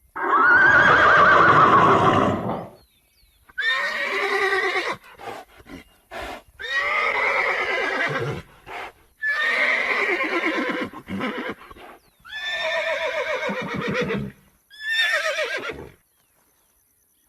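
Horses whinnying, about six neighs in a row, each a second or two long with short pauses between; the first is the loudest and longest.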